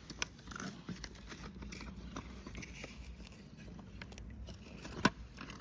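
Plastic toy excavator being handled and moved about: scattered small clicks and crackles, with one sharper click about five seconds in.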